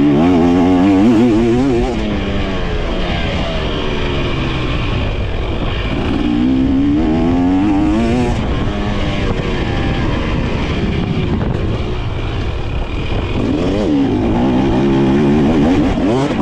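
2023 KTM 300 SX two-stroke dirt bike engine being ridden, revving up hard three times (near the start, about six seconds in, and near the end) with the pitch climbing and dropping in between.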